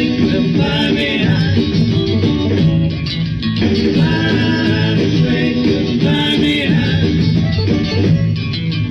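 1960s British beat band playing live: a sung vocal over guitar and rhythm section. This is an old TV recording, restored and enhanced with AI so the vocals come forward.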